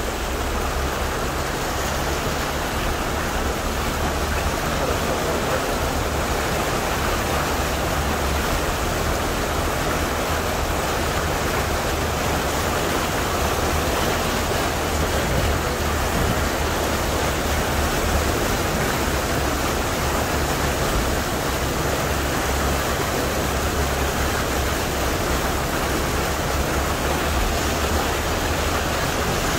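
Steady rushing and churning of floodwater as a car drives through a flooded street, with a low rumble underneath.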